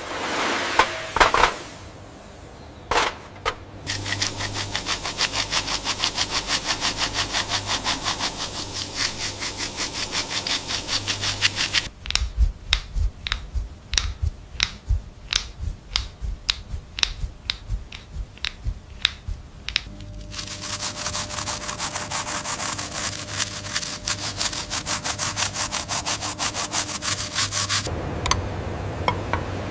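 Hand sanding: fast, rhythmic back-and-forth rubbing strokes, several a second. About halfway through they give way for several seconds to separate sharp knocks about twice a second, then the sanding strokes resume.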